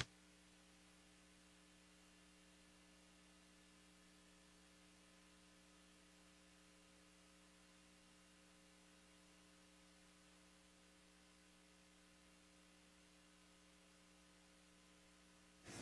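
Near silence: a faint, steady electrical mains hum, with the sound dropping out abruptly at the start and coming back just before the end.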